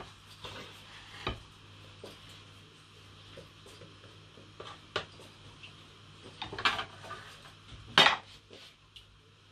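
A spatula scrapes and knocks against a frying pan and plates as scrambled egg is served out: scattered clinks and scrapes, the loudest about eight seconds in.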